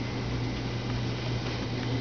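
Room background noise: a steady low hum with an even hiss.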